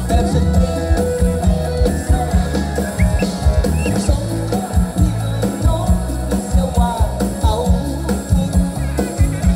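Live band music played loud through a PA: a drum kit keeping a steady beat under bass, electric guitar and keyboard.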